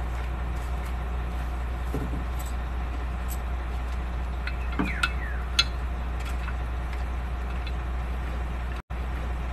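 Steady low engine rumble, with a few sharp metal clinks around the middle as parts are handled at a truck's engine.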